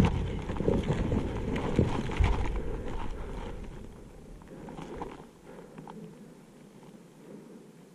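Movement over loose brick rubble and crushed plaster: scuffing steps and knees on debris, with the ghillie suit rustling. It is busy and loud for the first few seconds, then dies away to a low background as the movement stops.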